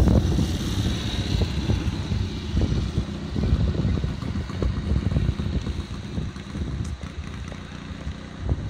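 Wind buffeting the microphone in irregular low gusts, over the diesel engine of a Volvo EW160E wheeled excavator running.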